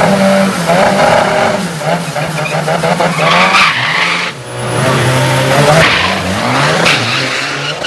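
Turbo-diesel Toyota HiLux drag truck doing a burnout to warm its rear tyres. The engine revs hard in repeated surges, dipping briefly about halfway, while the spinning tyres hiss and squeal.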